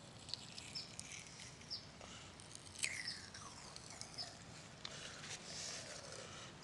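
Faint bird calls: short high chirps repeating about once a second, with one longer call falling in pitch about three seconds in.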